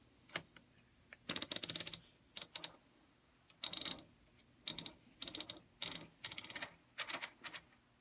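1969 Remington 333 portable manual typewriter being typed on: the typebars snap against the platen in quick runs of keystrokes. There are about eight short runs, with brief pauses between them.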